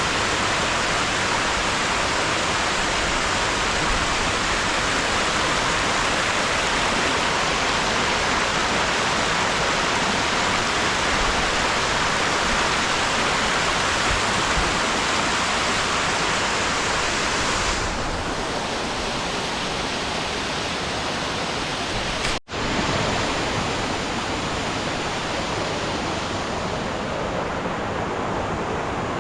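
Steady rushing of falling water, an even hiss-like noise with no distinct events. It gets slightly quieter about two-thirds of the way through, after a brief break.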